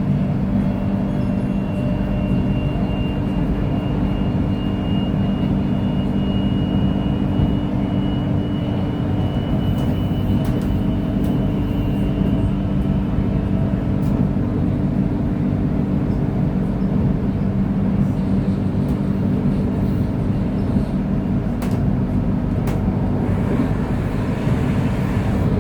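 KTM Komuter electric train running, a steady low hum. A faint high whine rises slowly over the first dozen seconds, then fades. A few sharp clicks come in the second half.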